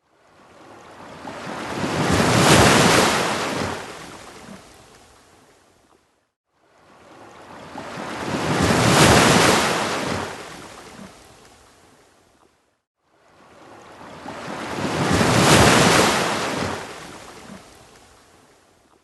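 Ocean waves breaking on a beach: three surges about six and a half seconds apart, each building to a rush of surf and then fading away, with a brief drop to silence between them.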